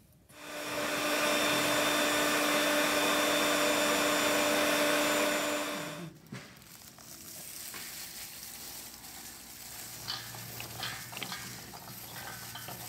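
Electric blender running at full speed for about six seconds with a steady whine, puréeing garlic cloves with water and salt into a sauce, then cutting off abruptly. After it, a quieter stretch of small clicks and rustles as cashew nuts are mixed by hand in a steel bowl.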